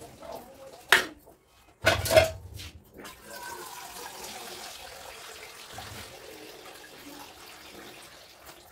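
Metal lid of a steel cooking pot clinking against it in two sharp knocks as it is lifted off and set down, followed by water running steadily.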